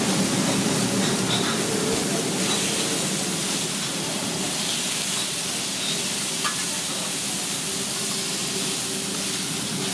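Beef burger patties sizzling steadily on a flat-top griddle, moved about with a metal spatula, with one short click about six and a half seconds in.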